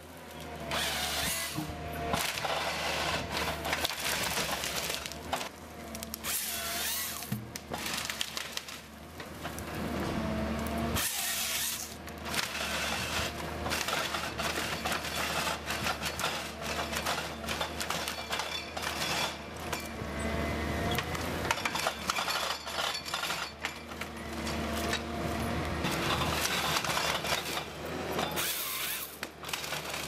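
Tracked forestry harvester at work: its engine and hydraulics run steadily with a whine that slides up and down in pitch, while the harvester head's chain saw cuts and branches crack and snap as stems are fed through and delimbed.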